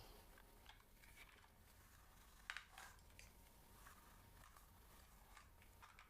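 Faint, scattered soft clicks and scratches close to the microphone, the loudest about two and a half seconds in.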